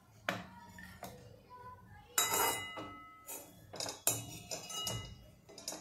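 A metal serving spoon knocking and scraping against a metal kadai while scooping puffed rice out onto a plate: about eight clinks and taps, several followed by a short metallic ring.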